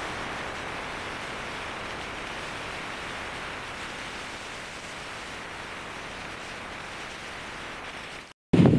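Steady, even hiss with no low rumble, fading slightly, that cuts off abruptly near the end; after a brief silence, loud wind buffets the microphone.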